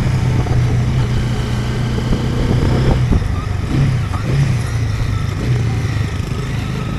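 Motorbike engine running at a steady pace while riding, a continuous low hum with road and wind noise.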